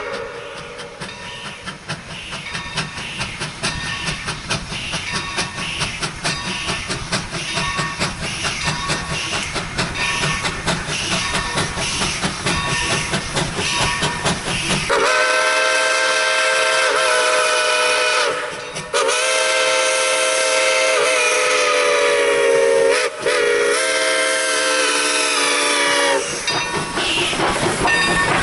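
Steam locomotive approaching with a dense, regular rhythm of exhaust and rail noise. From about halfway through, its whistle blows several notes together in four blasts, long, long, short, long: the grade-crossing signal. The engine passes close near the end.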